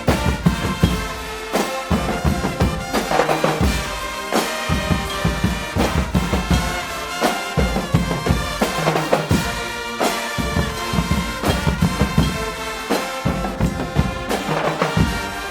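Guggenmusik carnival band playing loudly: massed brass, trumpets and trombones, over a steady pounding drum beat.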